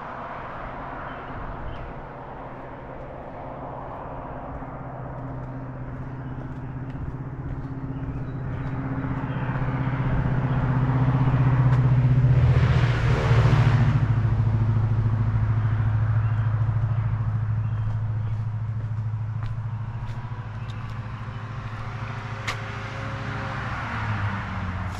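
Road traffic: a motor vehicle's engine and tyre noise grows louder, peaks about halfway through, then fades away, over a steady low engine hum.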